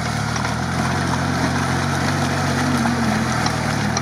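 UAZ off-roader on BTR armoured-carrier tyres, its engine running steadily under load as the truck crawls through deep swamp mud.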